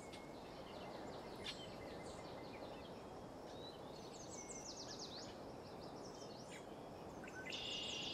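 Songbirds chirping over a steady low rushing background of outdoor ambience. There is a quick run of descending whistled notes about four to five seconds in and a buzzy trill near the end.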